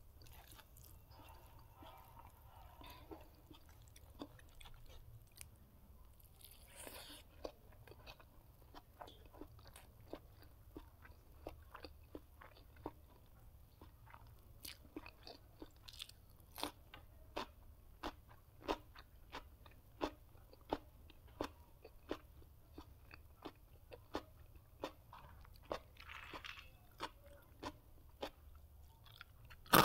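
A person eating: chewing with crunchy bites and sharp wet mouth clicks. The clicks grow louder and come about once a second in the second half.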